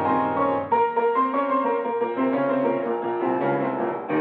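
Old-time radio drama music bridge: a passage of held chords, with a new phrase coming in sharply about a second in.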